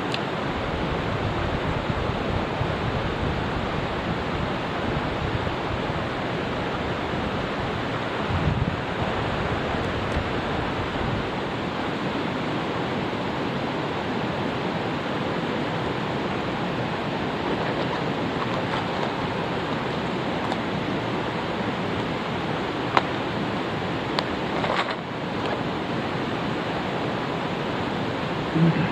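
Mountain stream rushing steadily, a close, even hiss of flowing water, with a few brief low thumps and one sharp click past the middle.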